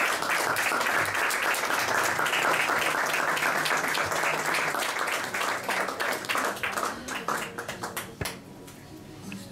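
Small audience applauding, the clapping thinning into scattered single claps after about six seconds and dying away soon after.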